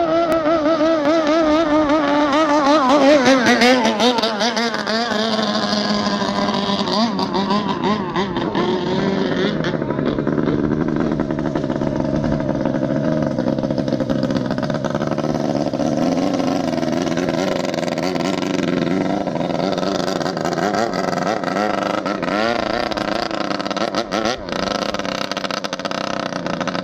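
Racing motorboat engine running hard. Its note wavers and falls in pitch over the first few seconds, then settles into a steady drone.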